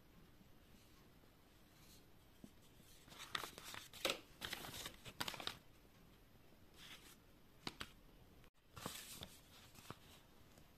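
Glossy paper perfume sample cards being handled, rustling and sliding against each other in several short bursts. The rustles come about three seconds in, again around seven seconds and near the end, over an otherwise quiet room.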